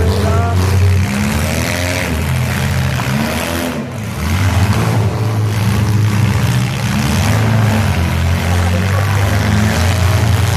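Demolition derby cars' engines running and revving, loud, their pitch rising and falling.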